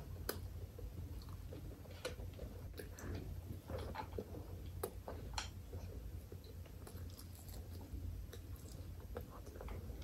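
Close-miked chewing of rice and chicken curry, with scattered wet smacks and clicks from the mouth over a steady low hum.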